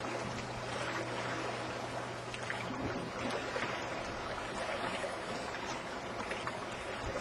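Choppy water lapping and splashing, with a steady low hum underneath.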